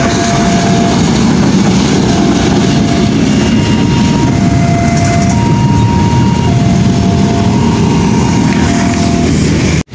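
Steady loud rumble of a diesel locomotive moving off past the level crossing, mixed with road traffic, with a faint tone alternating between two pitches about once a second.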